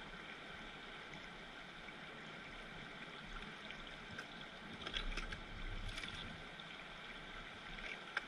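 Shallow river riffle rushing steadily over stones, with a few brief splashy knocks around five to six seconds in and once more near the end.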